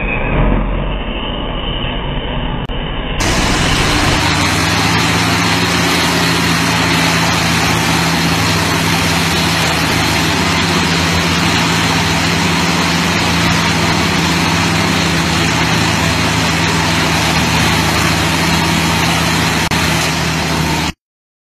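Heavy-equipment engine running steadily under load, with a constant low hum of engine tones. About three seconds in, the sound cuts from a duller, muffled recording to a clearer, louder one, and it stops abruptly near the end.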